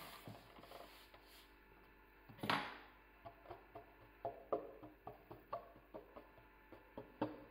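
A fork pricking a thin sheet of rolled dough on a metal baking tray: a string of short light taps, about two or three a second, as the tines go through to the tray. One louder, longer sound comes about two and a half seconds in, before the taps begin.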